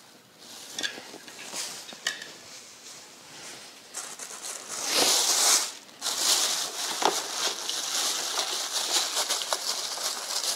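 Plastic bag wrapping crinkling and rustling as it is pulled off a small plastic turtle tank. A couple of light clicks come first, and the crinkling starts about four seconds in, louder from about five seconds in.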